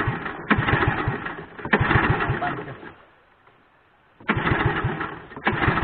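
Kelotok longboat engine being started by hand, turning over in repeated bursts of rapid low thuds about a second long, with a pause of about a second past the middle, without catching: the engine won't start.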